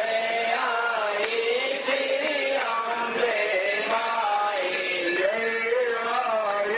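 A man singing a chant-like melody into a microphone through a PA, with steady instrumental accompaniment beneath the voice.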